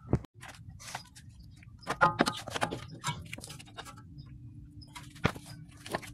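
Scattered metallic clicks, knocks and short scrapes as a new CV axle is handled and guided into the transmission's output opening on a Mini Cooper Countryman, with sharp knocks just after the start, about two seconds in and about five seconds in. A faint steady hum runs underneath from about a second in.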